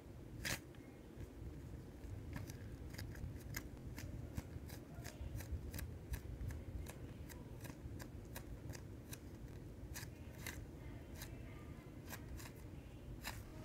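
Foam squishy toy squeezed and kneaded by hands close to the microphone: faint, irregular crackling clicks and rubbing, several a second.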